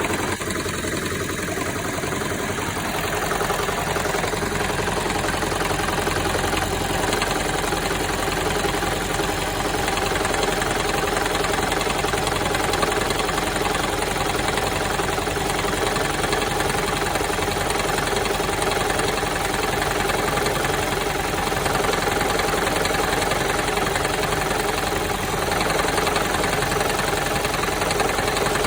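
2007 Toyota Prius 1.5-litre four-cylinder engine running steadily with a rattling, knocking sound. The owner traces the rattle to misfires on all cylinders, which cleaning the fuel injectors cured.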